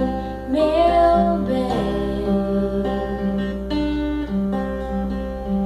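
Song with a voice singing and holding the word 'bem' over acoustic guitar accompaniment.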